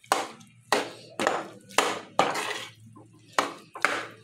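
Metal spatula scraping and stirring grated carrot and khoa in a metal kadhai, a rough scrape about twice a second.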